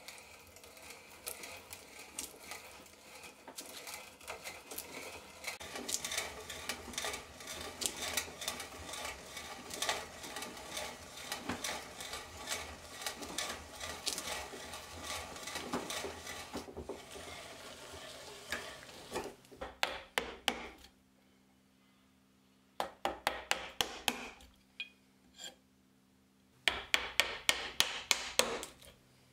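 Hand brace and auger bit boring into timber: a steady crackling and scraping as the bit's cutters lift shavings. This wastes out a mortise. About two-thirds of the way through the boring stops, and a chisel is then struck in three quick runs of sharp taps to chop out the mortise walls.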